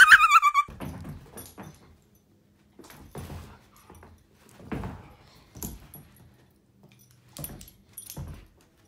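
Dog playing on a rug: separate short bursts of paw thumps and scrabbling, with the jingle of the dog's collar tags, about once a second as it pounces and paws at the floor.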